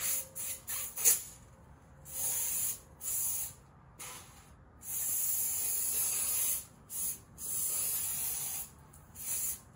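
Hose-fed spray gun spraying onto foam board in repeated hissing spurts: a few very quick squirts at first, then longer passes of up to nearly two seconds with short breaks between them.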